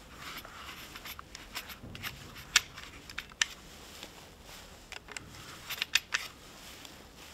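Irregular sharp clicks and light rattles as .68 calibre rubber-steel balls are pushed one at a time into the loading port of an Umarex HDX.68 pump-action CO2 shotgun, with a quick run of three clicks a little after the middle.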